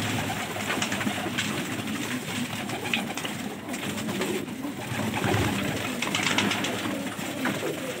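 Several domestic pigeons cooing, low and continuous, with a few faint clicks.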